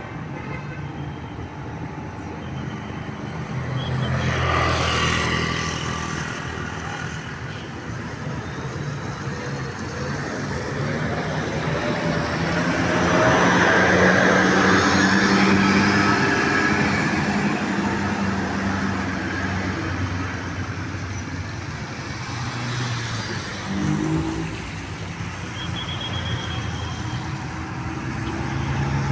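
Road vehicles driving past with engines running. Two louder passes swell and fade about five and fourteen seconds in.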